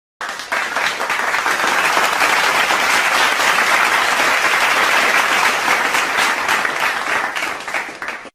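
A crowd applauding, a dense clapping that starts abruptly, swells, then dies away near the end.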